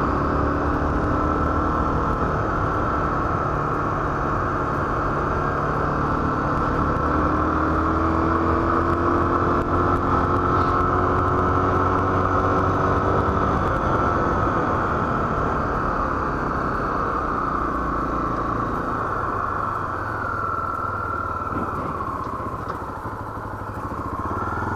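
Honda XR 250 Tornado's single-cylinder four-stroke engine running as the motorcycle is ridden, its pitch rising a few times through the middle as the throttle opens, and easing off near the end.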